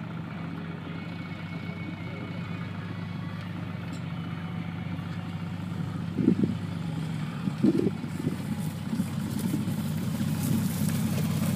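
Motor trike's engine running steadily, growing gradually louder as the trike rides across the grass towards the listener, with two short louder bursts about six and eight seconds in.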